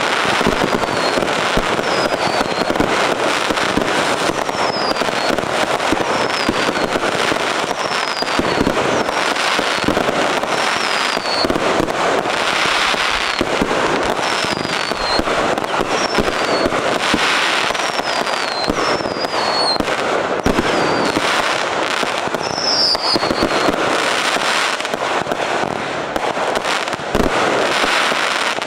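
Consumer aerial firework cakes firing a continuous barrage of bursts, with dense crackling and bangs. Short falling whistles cut through about once a second.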